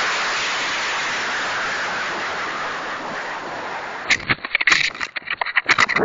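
Model rocket motor's exhaust hiss, heard from a camera riding on the rocket, fading steadily as the rocket climbs until the motor burns out about four seconds in. After that come irregular crackles and clicks as the rocket coasts.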